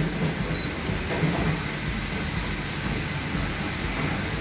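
Steady rushing fan noise of a commercial kitchen, with a low hum underneath; a very brief faint high beep about half a second in.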